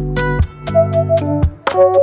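Background music: sustained keyboard or synth chords and melody notes over a steady beat of sharp percussion hits.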